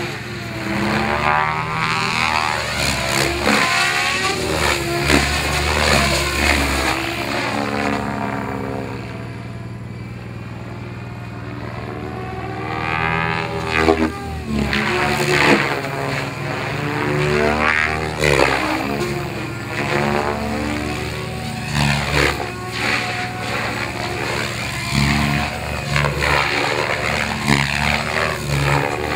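Radio-controlled helicopter flying: a steady drone from its rotor and drive, with a whooshing that sweeps up and down in pitch as it passes close. It grows quieter for a few seconds about a third of the way through, then louder again.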